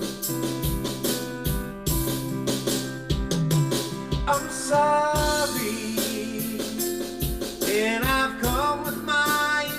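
A gospel-style song playing: singing over guitar and a steady drum beat.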